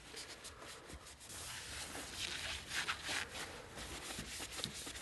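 Oily cloth rag wiping over a laminated wood rifle stock: soft, irregular rubbing strokes.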